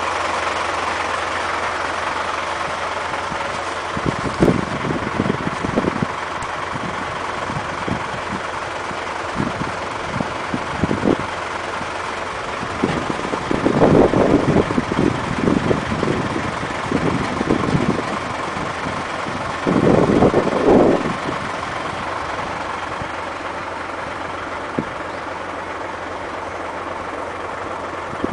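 Dump truck engine running steadily, with uneven bursts of wind buffeting the microphone, the loudest about halfway through and again about two-thirds of the way in.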